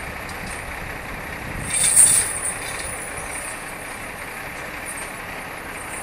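Semi-truck running in the street, a steady rumble and hiss, with a short sharp hiss of air about two seconds in.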